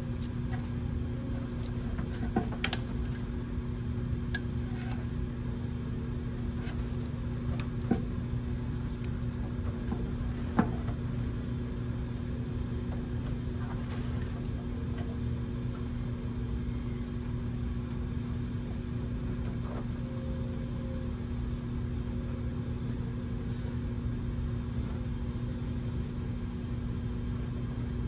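A steady machine hum with a few short, light clicks of plastic wiring connectors and wires being handled, most of them in the first ten seconds or so.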